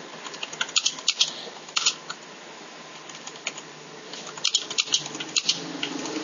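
Irregular sharp clicks and taps in small clusters, about a second in, near two seconds, and again between four and a half and five and a half seconds, over a faint steady hiss.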